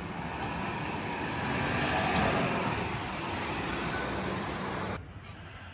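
Four-wheel-drive ute's engine running and its tyres churning on sand as it crawls through deep washouts and passes close by, loudest about two seconds in. The sound drops away abruptly near the end.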